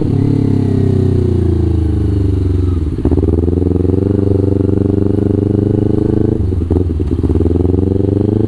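Kawasaki Ninja 250 FI parallel-twin engine under way through a Villan New ZX1 aftermarket exhaust. The engine note sinks over the first few seconds, then twice breaks off, drops and climbs again, about three seconds in and again near seven seconds.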